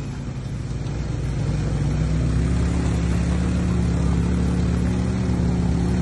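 ATV (quad bike) engine running steadily as the quad is ridden, a low hum that grows a little louder over the first two seconds.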